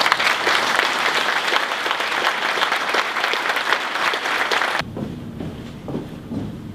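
Audience applauding, a dense steady clapping that cuts off abruptly about five seconds in. Quieter scattered knocks follow.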